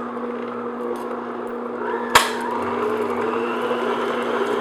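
Electric stand mixer running at medium speed, its motor giving a steady hum as the flat beater creams softened butter in a glass bowl. One sharp knock about two seconds in.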